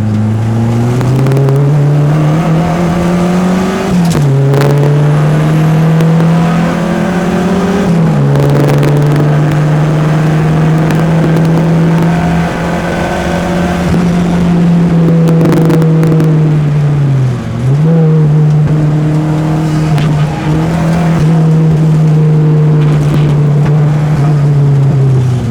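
Peugeot 205's four-cylinder engine under hard acceleration on a race track. The revs climb and drop sharply at gear changes about four and eight seconds in, then hold fairly steady with a brief dip about two-thirds of the way through.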